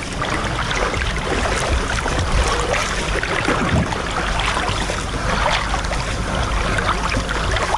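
Water splashing and sloshing as swimmers cross a river, heard right at the water's surface: a steady rush of churning water with many small splashes.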